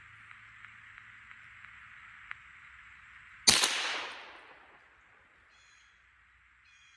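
A single .22 LR rifle shot about halfway in: a sharp crack with an echo that trails off over a second or so, fired at a squirrel.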